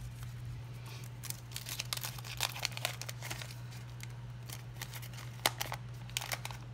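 Wax-paper wrapper of a 1986 Topps baseball card pack crinkling and tearing as it is opened, in a run of quick, irregular rustles over a steady low hum.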